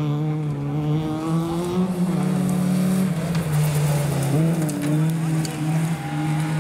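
Fiat Cinquecento rally car's engine heard from onboard, working hard, its pitch climbing and dropping several times, with scattered sharp ticks over it.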